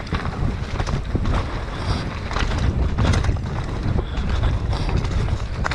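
Mountain bike ridden fast down a dirt forest trail: wind buffets the action camera's microphone over a steady low rumble of the tyres on dirt, with frequent clicks and clatters from the bike over bumps.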